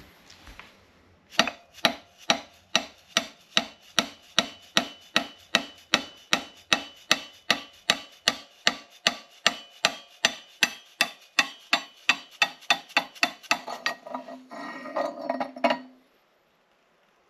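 Steady hammer blows on metal, about three a second for some twelve seconds, each strike ringing briefly, as parts of a 2002 Honda 400EX quad are driven apart. A short rasping, scraping sound follows near the end.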